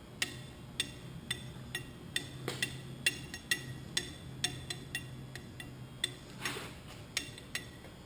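Sharp metallic clicks, two or three a second and unevenly spaced, as the tailstock handwheel of an American Pacemaker engine lathe is cranked by hand. There is a short hiss about six and a half seconds in.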